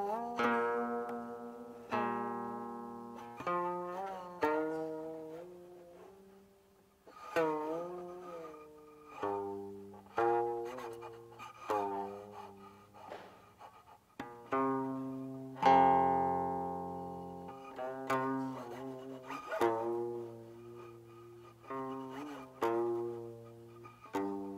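Guqin played solo: plucked single notes and note pairs that ring and slowly fade. Several notes bend and waver in pitch after the pluck as the left hand slides and vibrates on the string. The strongest, fullest stroke comes about two-thirds of the way through.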